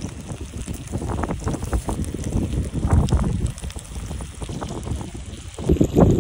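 Wind buffeting the microphone, over crackling and sizzling from the Swedish log torch fire and the hot pot it heats; louder near the end.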